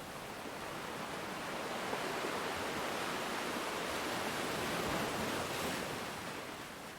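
Ocean surf: a steady rush of breaking and washing waves that swells over the first few seconds, peaks, then slowly fades near the end.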